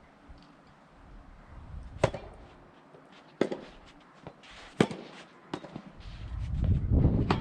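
Soft tennis balls struck by rackets: four sharp pops, roughly a second to a second and a half apart. Near the end strong wind starts buffeting the microphone with a rising low rumble.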